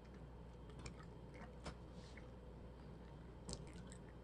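Faint chewing of a mouthful of banana: a few soft, wet mouth clicks, the loudest about three and a half seconds in.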